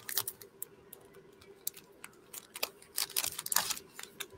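Foil trading-card booster pack crinkling and tearing as it is ripped open and the cards are pulled out. The crackles come in two bursts, one at the start and a denser one about two and a half seconds in.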